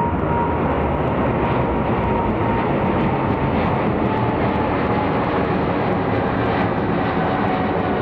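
Boeing 777's GE90 jet engines running with a loud, steady roar and a whine that slowly falls in pitch.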